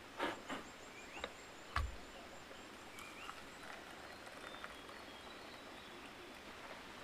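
Quiet forest ambience: a few short sharp sounds in the first two seconds, the loudest a single knock, then faint short bird-like chirps and a thin, rapid high ticking over a steady hiss.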